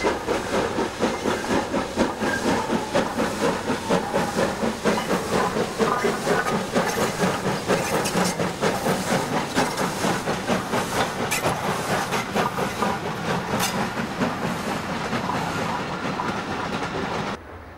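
Steam locomotive working hard with a passenger train, its exhaust beating about three times a second as it passes close by, followed by the coaches rolling past with clicks of wheels over rail joints. The sound cuts off abruptly near the end.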